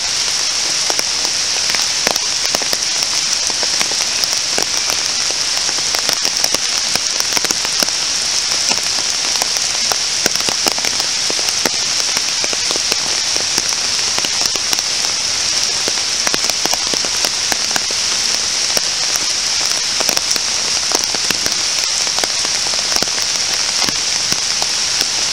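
Steady rain falling on trees, grass and a wet path: an even hiss with many separate drop hits.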